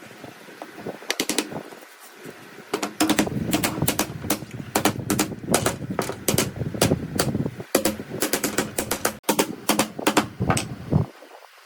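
Rapid, irregular series of sharp knocks, several a second, over a low rumble, starting about a second in and stopping shortly before the end.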